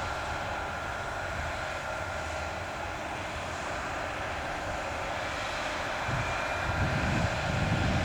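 Heavy farm harvest machinery running steadily, with wind starting to buffet the microphone about three quarters of the way in.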